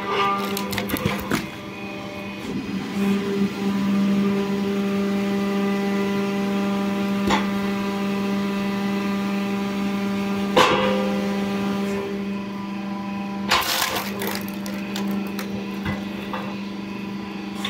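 A log splitter's motor running with a steady hum as logs are pushed onto the wedge and split, with sharp cracks of splitting wood about a second in and again around seven, ten and a half and thirteen and a half seconds in.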